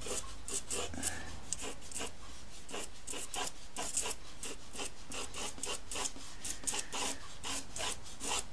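Pastel pencil held on its side scratching across textured pastel paper in quick, short, repeated strokes, about three a second.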